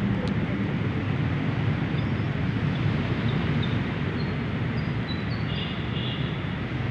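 Steady low rumble of outdoor noise, wind on the phone's microphone mixed with street traffic, as the phone is carried along on a walk. A few faint high bird chirps come through in the middle.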